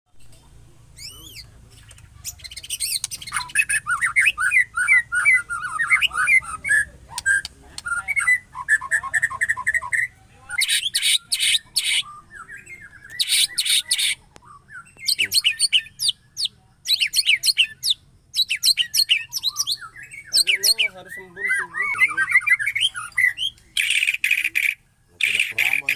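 White-rumped shama (murai batu) singing a varied run of quick whistled notes and rapid trills, broken several times by loud, harsh, rasping bursts.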